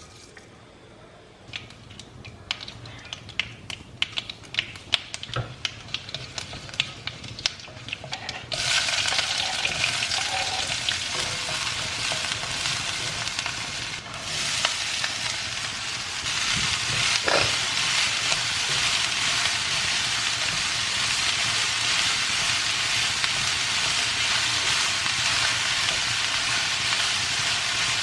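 Utensils clinking and tapping against a pan for several seconds, then a sudden sizzle as food goes into hot oil. The sizzle holds steady with stirring.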